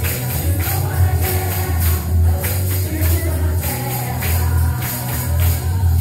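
Gospel music with a women's choir singing over a heavy bass line, and a tambourine shaken in a steady beat.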